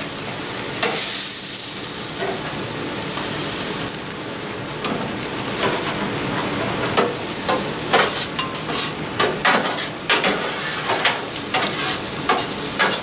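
Spinach sizzling and steaming on a griddle top while a metal spatula stirs and turns it, scraping and tapping on the plate. The scrapes and taps come thick and fast in the second half.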